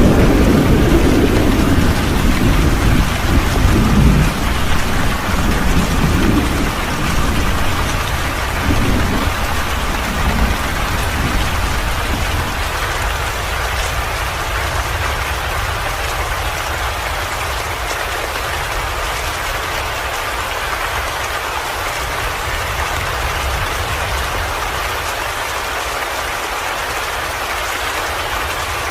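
Steady, heavy rain falling, with a deep rumble of thunder in the first part that rolls on for several seconds and dies away about twelve seconds in, leaving only the rain.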